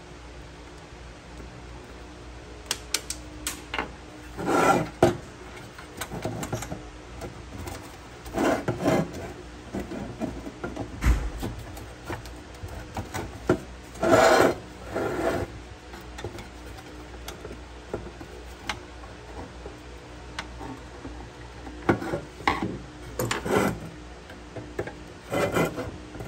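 Irregular scraping and rubbing strokes, each under a second, mixed with sharp clicks and light knocks, over a steady low hum; the strokes thin out to a few ticks in the middle and pick up again near the end.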